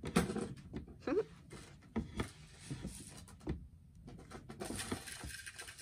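Light knocks, clicks and rustling as the parts of a toy house are handled during assembly, with a short voice sound about a second in.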